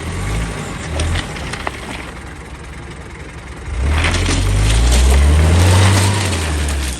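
A 4x4's engine running, then revving hard under load from about four seconds in, its pitch rising slightly, with a rush of noise over it. It eases off just before the end.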